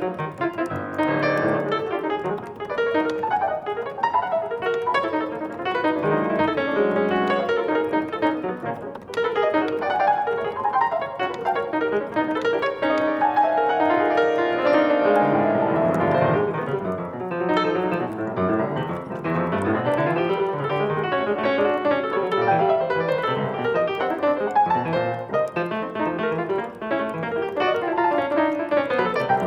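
Piano playing a dense, continuous stream of notes without a break.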